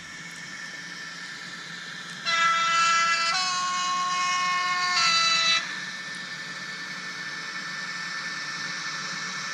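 Model BLS Re 465 electric locomotive's sound decoder sounding its horn. A blast of about three seconds starts about two seconds in and changes pitch twice, over a steady, quieter running noise from the model train.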